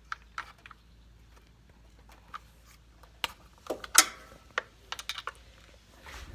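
Irregular sharp clicks and light metallic knocks from hand tools and parts being handled while working at bolts on a riding lawnmower, with the loudest knock about four seconds in.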